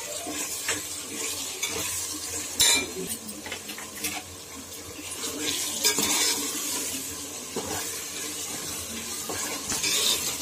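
Sliced onions frying in plenty of ghee in a large metal pot, a steady sizzle as they start to turn golden brown. A steel spoon scrapes and clanks against the pot at irregular intervals as they are stirred.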